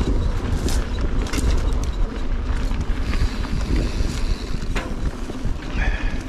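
Mountain bike rolling fast down a dry dirt trail: wind buffeting the microphone as a steady low rumble, with the tyres on loose dirt and scattered clicks and rattles from the bike.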